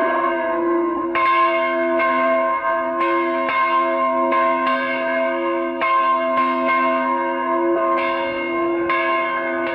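A church tower bell swinging and ringing, struck over and over about once a second, each stroke's tone ringing on into the next.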